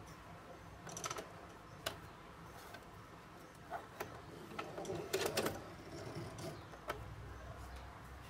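Singer Heavy Duty sewing machine turned slowly by a hand crank, stitching through a strip of leather. The mechanism gives scattered, uneven clicks and knocks, with a short burst of clatter about five seconds in.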